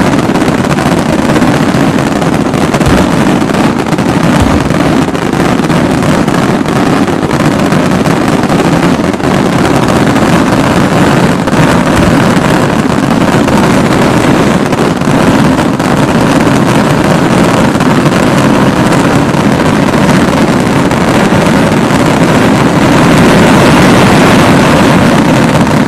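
Fireworks finale: a dense barrage of aerial shell bursts and salutes fired so close together that the bangs merge into one unbroken, very loud wall of noise.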